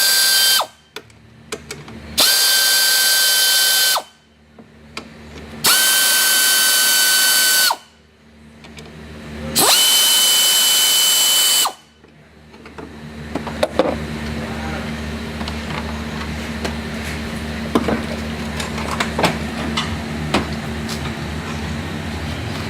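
An electric power tool runs in four separate bursts of steady whine, each about two seconds long, spinning the nuts off the front strut's top mount. After the last burst come a few light metal clinks over a steady low hum.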